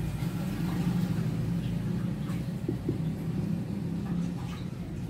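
A low, steady motor hum, with faint strokes of a marker writing on a whiteboard.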